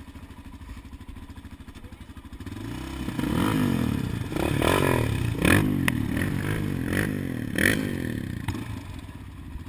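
Quad ATV engine idling, then revving up about two and a half seconds in as the quad pulls away across the sand, its pitch rising and falling with several revs.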